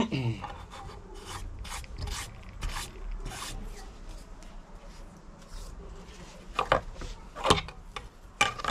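Short rubbing and scraping strokes of hands on the workbench and drill press table while a thin PVC plate is picked up and handled, about two a second at first, sparser in the middle, and the loudest ones near the end. The milling motor is not running.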